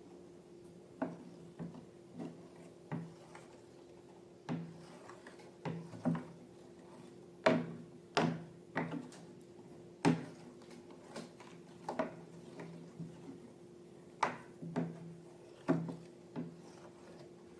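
Slime being handled, with irregular sharp sticky clicks and pops, about one a second, over a faint steady hum.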